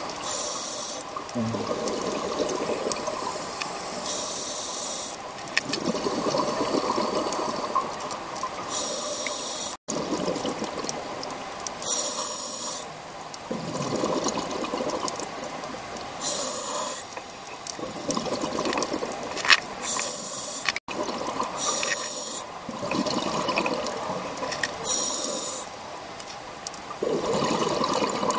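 A scuba diver breathing through a regulator underwater. Each inhalation is a short high hiss, about every three to four seconds, and between them comes the lower rush and burble of exhaled bubbles. The sound cuts out for an instant twice.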